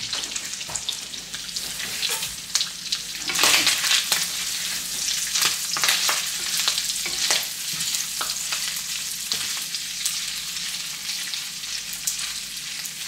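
Meat frying in butter in a hot pan, sizzling steadily, with a louder surge of sizzling about three seconds in and scattered clicks of stirring.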